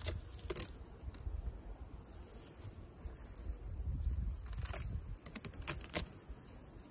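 Crinkling and crackling of a foil-bubble insulation sheet being handled and peeled back off the top of a beehive: one crackle about half a second in and a cluster of sharper crackles near the end. Low wind rumble on the microphone underneath.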